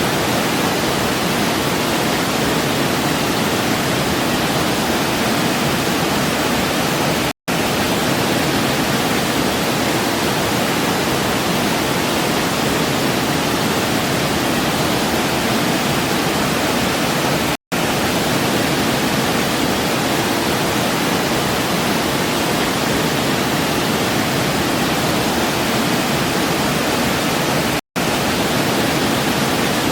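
Waterfall: a steady, even rush of falling water. The sound cuts out for a split second three times, about ten seconds apart.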